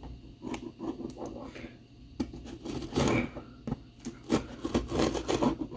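Hands handling a cardboard box: irregular rubbing and scraping with scattered knocks and clicks.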